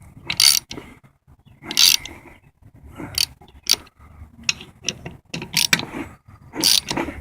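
Hand socket ratchet clicking in short bursts of back-strokes, about one burst a second, as bolts are tightened down.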